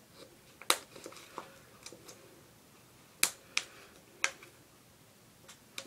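Handling noise: four sharp clicks, with fainter ticks between them, as a fuse is pushed into the cap of a small plastic bottle filled with firework powder.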